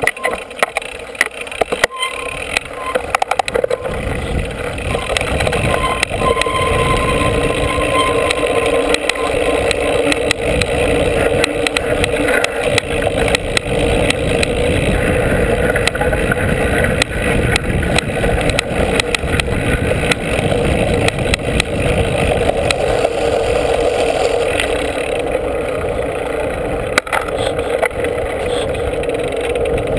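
Mountain bike rolling downhill: wind buffeting the bike-mounted mic and the knobby tyre running over the dirt trail, with scattered clicks and rattles from the bike. It picks up about four seconds in as the bike gets moving and stays steady after that.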